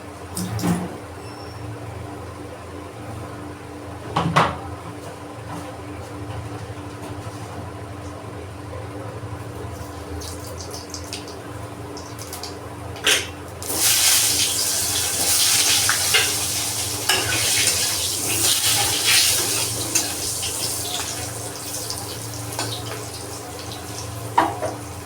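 Cooking sounds: a few sharp clinks of a utensil against a pot, then about eight seconds of loud hissing with crackles from the pan, over a steady low hum.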